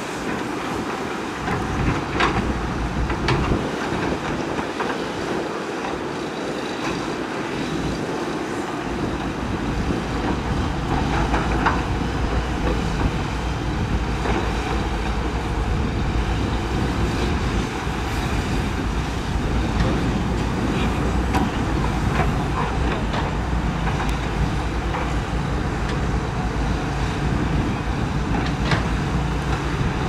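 Several Caterpillar hydraulic excavators working together, their diesel engines running steadily, with a handful of sharp metallic clanks from buckets and tracks. The low engine rumble grows stronger about a third of the way in.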